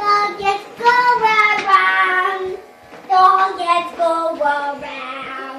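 A young child singing a simple tune in held, gliding notes, with a short pause about halfway through.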